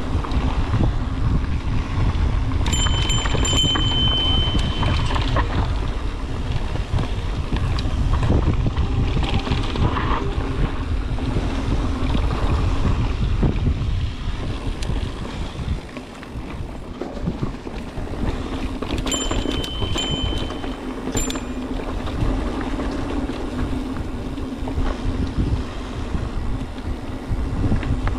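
Mountain bike riding on dirt singletrack heard from a camera on the rider: wind buffeting the microphone and tyres rumbling over the trail. Two brief high-pitched squeals, a few seconds in and again about two-thirds through.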